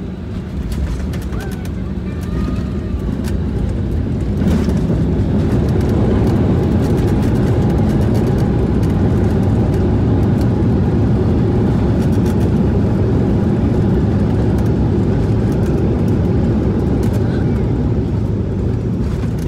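Jet airliner rolling down the runway after touchdown, heard from inside the cabin: a steady loud rumble of engines and wheels that swells about four seconds in and holds.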